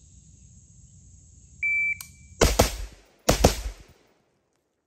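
An electronic shot timer beeps once, then an HK416 rifle fires four shots in two quick pairs, each pair a fraction of a second apart and the pairs about a second apart.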